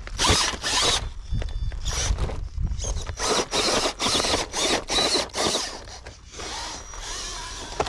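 Radio-controlled rock crawler's electric motor and geared drivetrain whirring in short throttle bursts, about two a second, as it crawls over rock.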